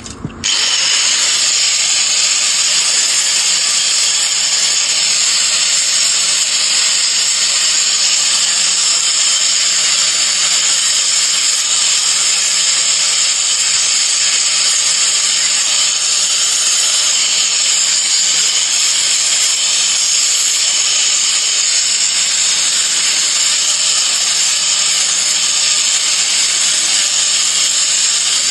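Electric grinder running steadily against the sheet-iron blade of a handmade spatula, grinding its edges smooth: a loud, unbroken hiss that starts about half a second in.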